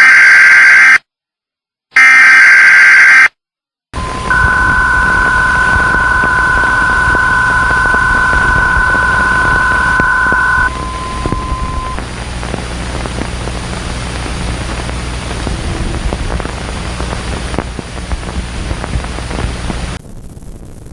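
Emergency Alert System broadcast opening. Two loud bursts of screechy data tones, about a second each with a gap between, are followed by a steady two-note alert tone lasting about six seconds, whose lower note holds on a moment longer. Static and a low hum run underneath and drop away near the end.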